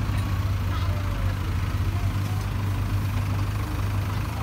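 Diesel engine of a Case backhoe loader running steadily with a deep, low hum.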